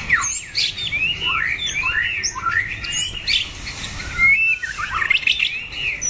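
Caged white-rumped shamas singing together: a busy run of quick rising-and-falling whistles and chirps from several birds, overlapping without a break.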